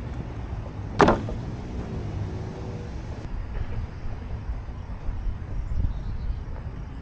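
Four-wheel-drive vehicle running with a steady low rumble, with a single sharp clank about a second in that rings briefly.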